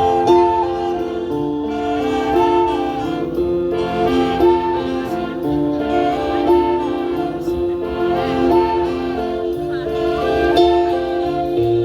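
An orchestra playing an instrumental piece: a melody of held notes stepping up and down over a sustained bass line.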